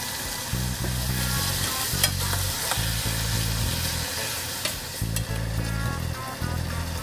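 Chicken curry sizzling in a saucepan as a metal turner stirs it, with sharp clicks of metal against the pan, over background music with a low bass line.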